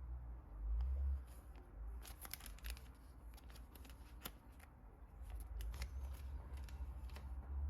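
Hands unpacking and handling a CD album's packaging: scattered crinkles, clicks and light rustling over a low handling rumble.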